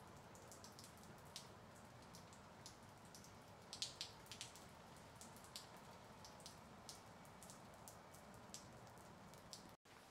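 Light rain falling on wet concrete pavement and a shallow puddle: a faint steady hiss with scattered sharp drop impacts, several close together about four seconds in. The sound cuts out for an instant near the end.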